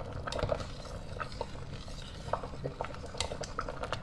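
A metal ladle clinking and scraping against a stainless steel pot of simmering stock: scattered light clicks, some with a short ring, over a low steady bubbling.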